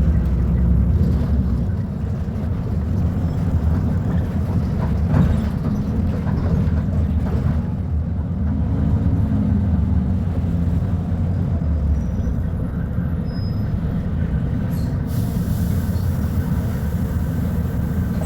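Volvo B290RLE city bus engine running steadily with a low rumble. Its note rises and falls about nine seconds in, and a steady hiss joins about fifteen seconds in.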